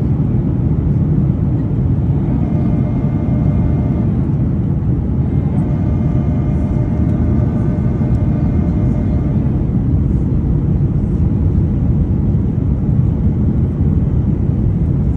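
Airliner cabin noise in flight: a steady, loud, low rush of engines and airflow. A faint set of higher steady tones hums through for a few seconds in the middle.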